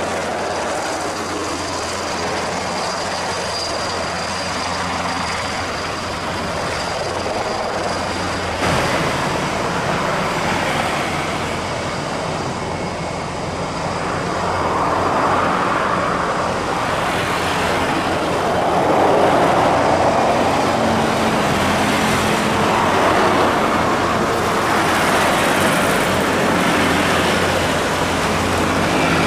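Eurocopter EC725 Caracal twin-turbine military helicopter hovering low: steady rotor and engine noise, with a thin high whine in the first part. The sound changes abruptly about nine seconds in and then swells and fades several times.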